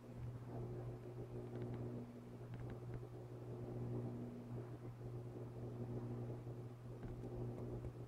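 A steady low mechanical hum, with fainter higher tones that fade in and out and a few faint ticks about two seconds in.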